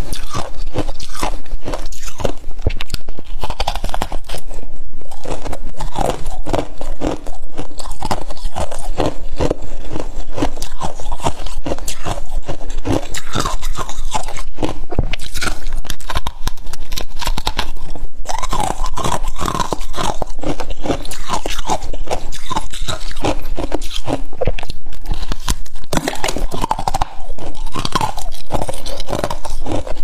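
Biting and chewing a lump of freezer frost: packed ice crystals crunching in the mouth, many quick crunches in a row without a break.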